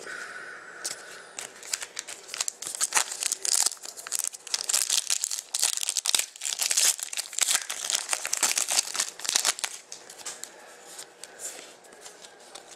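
A Panini Contenders hockey card pack wrapper being torn open and crinkled by hand: a dense run of crackling and tearing that starts about a second and a half in and eases off near the end as the cards come out.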